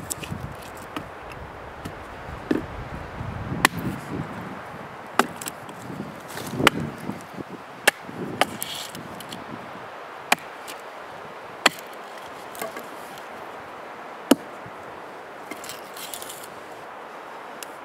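Gränsfors Bruks Small Forest Axe chopping into wood: about eight sharp, separate blows, irregularly spaced a second or two apart.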